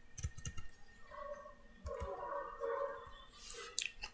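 Computer mouse clicking several times at irregular intervals, with a fainter muffled sound in the middle.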